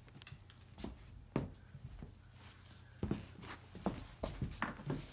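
Scattered light knocks, clicks and rustles from a hand-held camera being moved around a fabric sofa during assembly. There is one sharp click about a second and a half in and a quick run of taps near the end.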